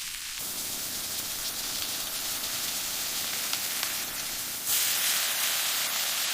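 A steady hissing noise that gets louder about three-quarters of the way through.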